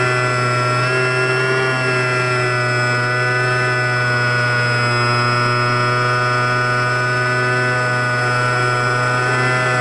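Electric motor and propeller of an RC Sbach 342 aerobatic plane in flight, picked up by a camera in its cockpit. It is a steady whine and hum made of several tones that shift slightly in pitch as the throttle changes.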